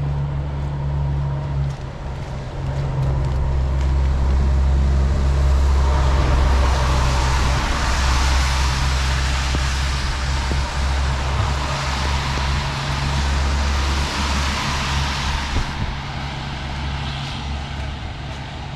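Road traffic on a rain-wet street: a vehicle's tyres hiss louder from about six seconds in and drop away about ten seconds later, over a steady low rumble.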